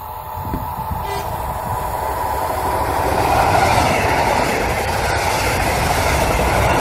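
Double-deck regional express train hauled by an electric locomotive approaching and passing at speed. Its rolling noise grows louder over the first few seconds, then holds steady as the coaches go by close at hand.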